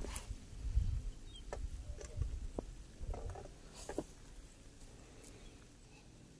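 Footsteps crunching over dry grass and rice straw, with scattered crackles and clicks and a low wind rumble on the microphone; the sounds die down and it turns quiet a little after halfway.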